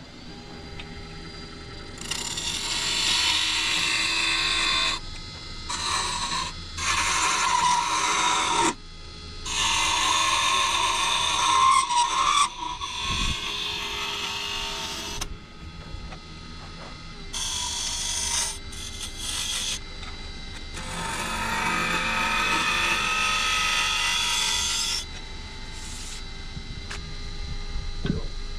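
Live oak top spinning on a wood lathe while a scraper is pressed against it: a series of scraping passes, each lasting one to four seconds, with the lathe's steady hum between them. This is the scraper smoothing the top's surface.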